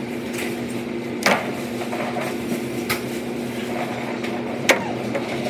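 A steady machine hum with three sharp knocks about one and a half to two seconds apart; the last knock, near the end, is the loudest.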